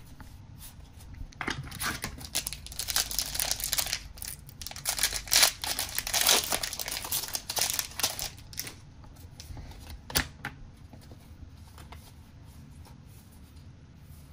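A trading-card booster-pack wrapper being torn open and crinkled: a run of crackling rustles over several seconds. After that comes quieter card handling, with one sharp click about ten seconds in.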